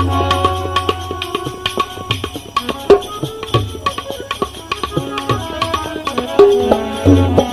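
Instrumental break in a Gujarati devotional bhajan: hand drums play a quick rhythm under held melodic notes, with no singing. Deep drum strokes sound at the start and again near the end.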